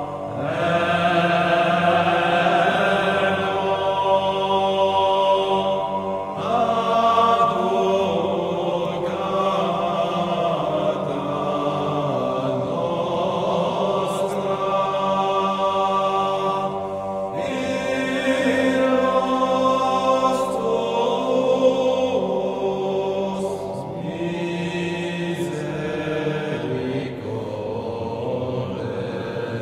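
Slow chant-style vocal music with long held notes that shift every few seconds.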